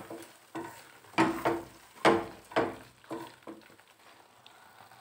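Wooden spatula stirring thick, sizzling masala gravy in a kadai, about seven short scraping strokes roughly two a second, fading out about three and a half seconds in to a faint sizzle.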